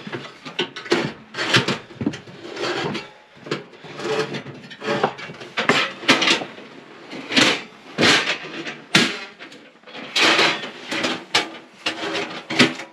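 Metal parts of a small portable tent wood stove being handled: an irregular run of clanks, knocks and scrapes as its pipes and wire grate are pulled out of the stove body and set down.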